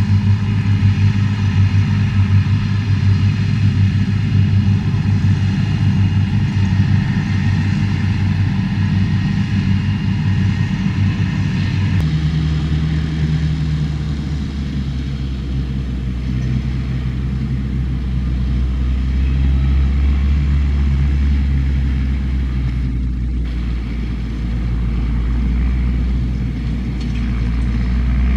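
Belarus 3022 tractor running steadily while mowing with a KMR-9 front-and-side mower combination, a continuous low drone. About twelve seconds in, the engine note drops abruptly lower.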